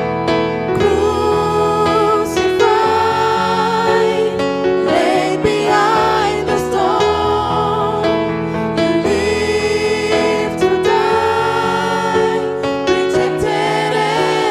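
Gospel choir singing with keyboard accompaniment and held bass notes.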